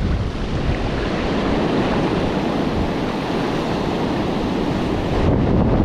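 Steady rush of surf breaking on a beach, mixed with wind buffeting the microphone.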